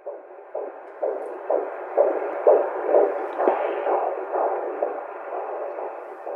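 Fetal heartbeat as heard through an ultrasound Doppler monitor: a rhythmic whooshing pulse at about two beats a second, growing louder over the first two seconds.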